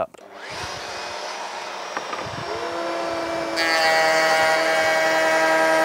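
Trend T14 half-inch router in a router table starting up together with its auto-start Trend T35 extractor: a rising hiss, then a whine that climbs and settles to a steady pitch. About three and a half seconds in the sound turns suddenly louder and fuller.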